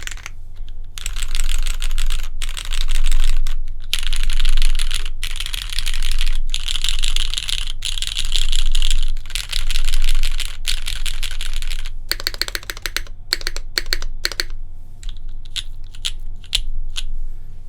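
Fast, continuous typing on a custom 60% mechanical keyboard with lubed, broken-in Cherry MX Black linear switches on a polypropylene plate under GMK keycaps. About two-thirds of the way through it slows to separate keystrokes.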